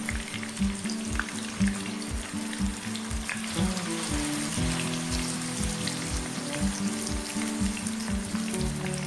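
Tofu strips deep-frying in hot oil in a wok: a steady sizzle with small crackles. Background music with a steady beat plays over it.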